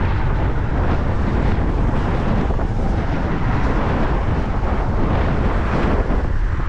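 Wind buffeting the microphone: a steady, loud rumble and rush.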